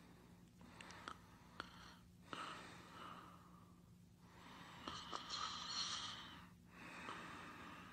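Faint, slow breathing of someone asleep: soft, airy snoring breaths in and out, about one every two seconds, over a faint steady hum.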